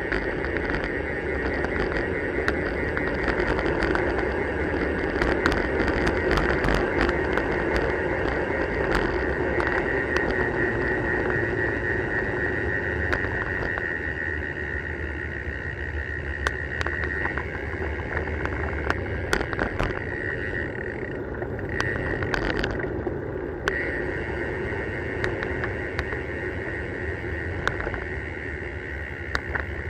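Riding noise picked up by a bicycle-mounted camera: a steady rumble of wind and tyres on the road, with scattered sharp clicks and knocks. A steady high buzz runs through much of it and breaks off briefly a little after twenty seconds.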